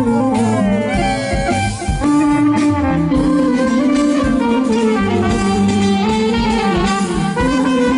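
Macedonian folk song music with a full band playing, led by a melody that slides in pitch about a second in.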